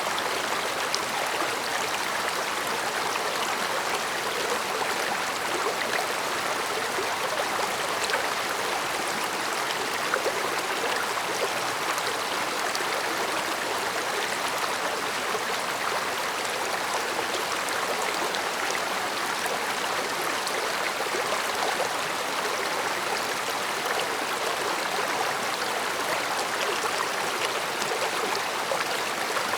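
Mountain stream flowing steadily over rocks, a continuous rushing murmur with small splashes and gurgles scattered through it.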